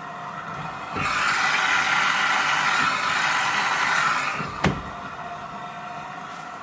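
AEG washing machine running a 95° cotton wash: a steady hum, then a loud hissing rush for about three and a half seconds that ends in a single sharp click.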